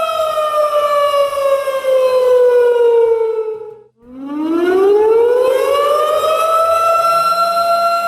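Civil-defence siren winding down: its tone falls steadily for about four seconds and dies away briefly, then winds back up and holds a steady high note.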